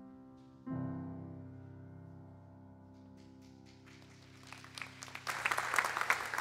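Grand piano's final chord struck and left ringing, fading slowly. About three seconds in, scattered clapping starts and builds into full applause near the end.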